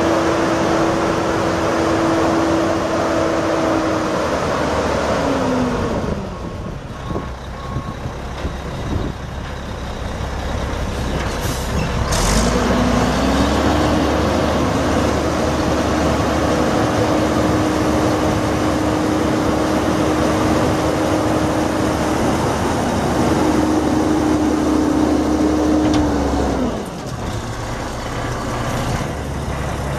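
Mack E7 diesel dump truck running at raised speed with a steady whine, which winds down about five seconds in. After a short air hiss about twelve seconds in, the whine climbs back and holds, then winds down again near the end.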